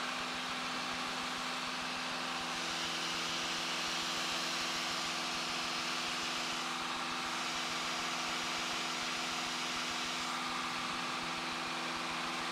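Cessna 172 Skyhawk's piston engine and propeller droning steadily in the cabin, held at climb power.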